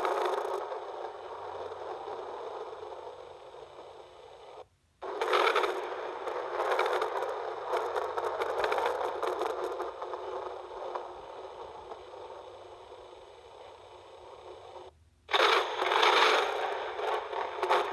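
Thunder sound effects: a peal fading away, then two more, each starting suddenly after a brief silence, about five seconds in and near the end, and dying away slowly.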